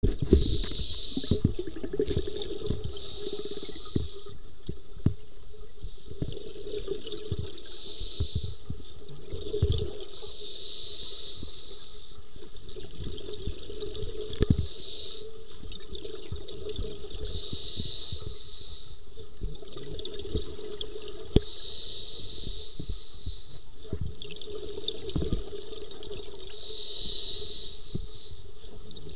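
Scuba regulator breathing underwater: a hiss swells every few seconds with each inhale, with bubbling exhaust from the exhales in between.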